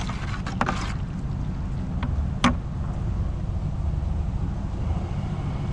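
A small engine runs steadily with a low hum. A few light clicks and one sharp click about two and a half seconds in.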